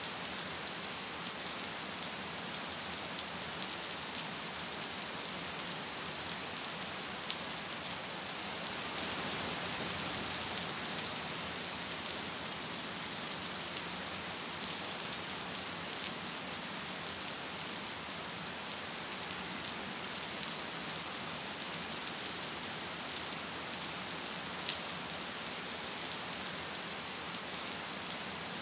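Gentle rain falling steadily: an even, high hiss flecked with the ticks of single drops.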